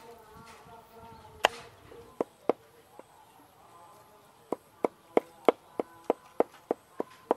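Meat cleaver chopping through a large fish into a chopping board: a few spaced blows, then a steady run of about three chops a second in the second half.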